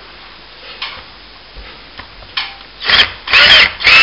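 Screw gun driving a long screw through a plaster cornice into the ceiling timber, in several short, loud bursts starting about three seconds in, with a squealing scrape as the screw bites and pulls the cornice up. A few light scrapes come before it.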